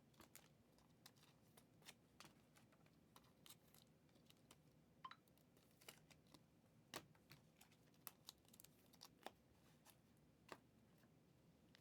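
Faint, irregular clicks of typing on a computer keyboard, a few a second with short gaps, over quiet room tone.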